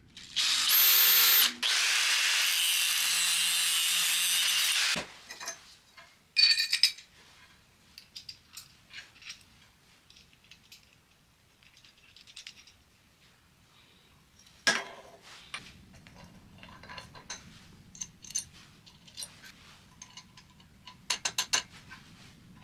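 Electric drill boring into a flat steel strip, running steadily for about four seconds and then stopping abruptly. After that come light metallic clicks and clinks of bolts, nuts and small bearings being handled and fitted together, including one short ringing clink and a quick run of clicks near the end.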